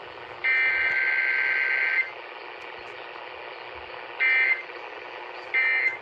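Emergency Alert System SAME digital data bursts, the buzzy two-tone header code, broadcast by KDKA 1020 AM and played through a Uniden BC370CRS radio. One long burst comes about half a second in, then two short bursts about a second apart near the end, with radio hiss between.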